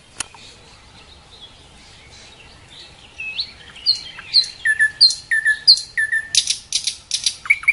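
Nightingale singing. After a sharp click at the start and a quiet stretch, a phrase begins about three seconds in: a few repeated two-part whistled notes dropping in pitch, then a burst of dry clicks, then a fast trill of repeated notes near the end.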